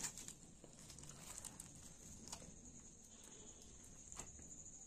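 Very faint crackles and soft clicks of crisp fried fish skin and flesh being torn apart by hand, a few scattered ticks over a steady faint high hiss.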